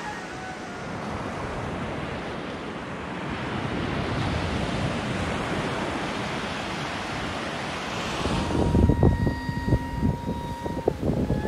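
Sea surf washing on a sandy beach, a steady rushing hiss. About eight seconds in it gives way to gusts of wind buffeting the microphone, with a steady tone running alongside for a couple of seconds.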